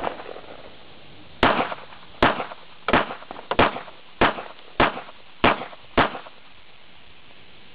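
Glock 42 .380 ACP pistol fired eight times in steady succession, about two-thirds of a second apart, emptying a 7-round magazine plus one in the chamber.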